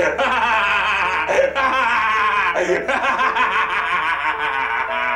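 A man laughing loudly and at length, a wide-mouthed, exaggerated belly laugh.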